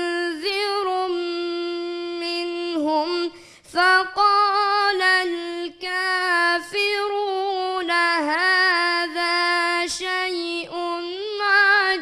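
A boy's unbroken voice chanting Quran recitation in melodic tajweed style. He holds long notes and ornaments them with wavering runs, broken by brief breath pauses, the clearest about three and a half seconds in.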